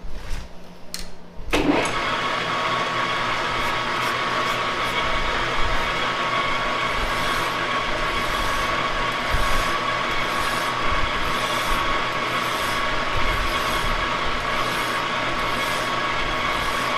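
An engine lathe starts up about a second and a half in, after a few clicks, and runs steadily with a whine. From about seven seconds in, a hand file is stroked over and over across the turning shaft, a repeated rasp, as the journal is filed to a half-inch size.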